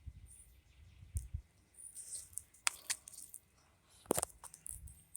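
Small plastic clicks and handling noises of a flip phone's battery being fitted back into the phone, with a few sharp clicks, the loudest about four seconds in.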